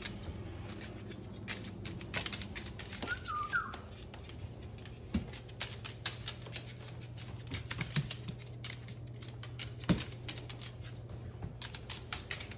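Moluccan cockatoo's claws clicking on a hardwood floor as it walks, in quick irregular taps with a louder knock near ten seconds in. A brief warbling chirp about three seconds in.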